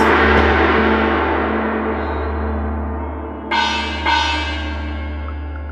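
A gong from GarageBand's Chinese Kit, struck just before and ringing out, slowly fading over a deep low hum. Two lighter metallic strikes come about three and a half and four seconds in.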